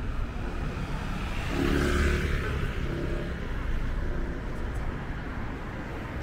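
Street traffic: a car passes close by about two seconds in, over a steady low rumble of city traffic.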